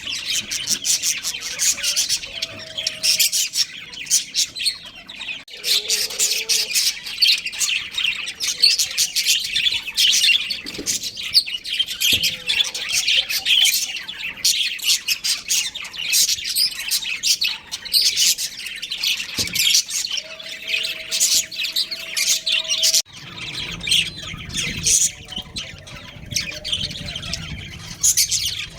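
A group of budgerigars chattering, a dense, unbroken stream of rapid high chirps and warbles. A low background rumble comes in near the end.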